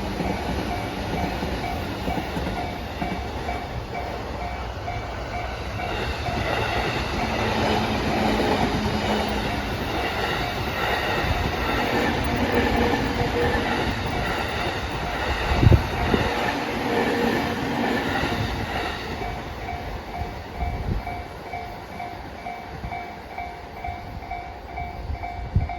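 A freight train of container wagons rumbles past with a clickety-clack of wheels over the rail joints. A level-crossing warning bell dings on and off steadily over it. A single loud knock comes about midway.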